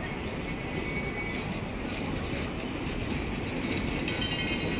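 Hong Kong double-decker electric tram rolling past on its rails, its running noise growing slightly louder, with a thin high-pitched squeal coming in near the end.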